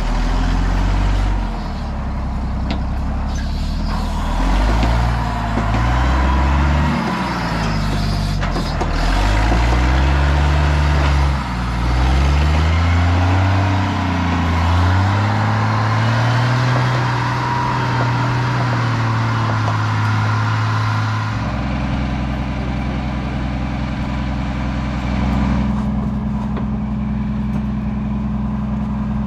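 Diesel engine of a Lull telehandler working, its revs rising and falling repeatedly, then settling to a steady run about twenty seconds in.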